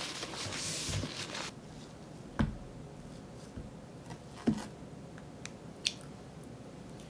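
Paper tissue rustling and crumpling as fingers are wiped clean, stopping about a second and a half in. After it come two light knocks, a metal fork against a plastic food container, and a few faint ticks.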